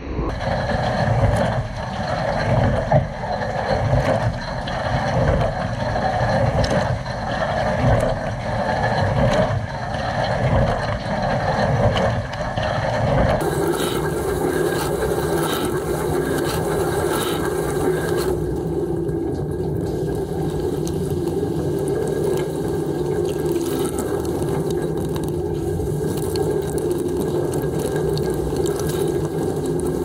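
Water spraying and splashing inside a running Bosch dishwasher, heard from a camera inside the tub, as the wash pump drives the spray arms and water hits the racks and the camera. The sound surges unevenly for the first half, then turns steadier and more even about halfway through.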